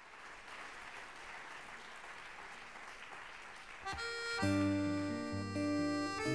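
A steady hiss of audience noise in the hall. About four seconds in, a solo button accordion starts playing sustained chords over low bass notes.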